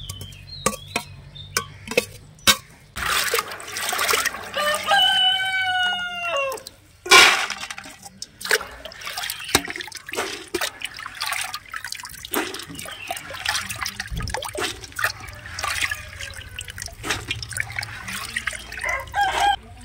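Water sloshing and splashing as dried beans are washed by hand in a pot of water, with small clinks of the beans and vessels. A rooster crows a few seconds in, and there is one sharp knock of a vessel just after it.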